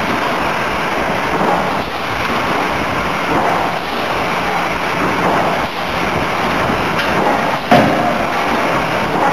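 Forging machinery running with a steady, loud noise, and one sharp metal clang with a short ring near the end as a hot steel blank goes into the die.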